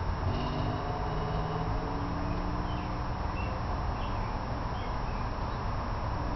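Steady outdoor background rumble, with a few faint bird chirps in the middle.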